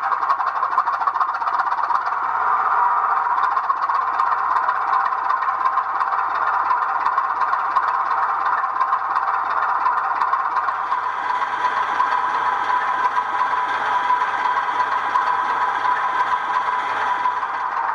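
A 00 gauge model diesel locomotive running, its sound decoder playing a steady diesel engine note through the on-board speaker, with a rattle of wheels over the track.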